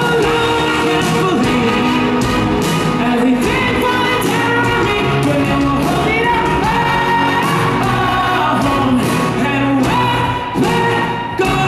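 Live pop-rock band playing: a male lead singer singing into a microphone over electric guitar and a steady drum beat.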